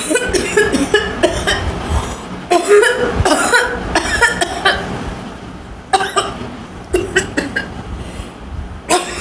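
A woman coughing on purpose, forcing out rapid strings of dry coughs in several bouts with short pauses between them.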